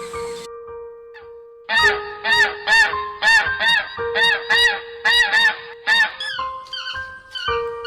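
Goose honking in a rapid series, about three loud honks a second from about two seconds in to about six seconds, with fainter calls after. Background music with steady held notes plays under it.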